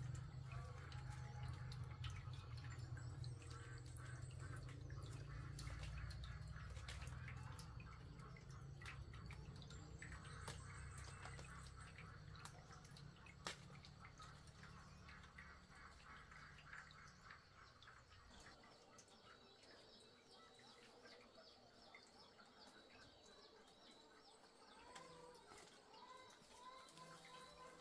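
Faint rustling and scattered clicks of leaves and twigs as someone climbs about in a tree, over a low rumble that dies away about two-thirds of the way through. Birds chirp faintly near the end.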